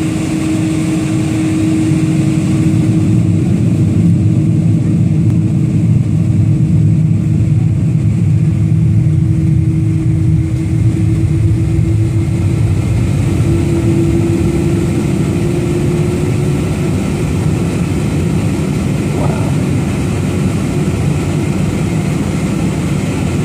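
Jet airliner engines running at taxi power, heard inside the cabin: a steady, loud rumble with a humming tone that rises slightly in pitch about halfway through.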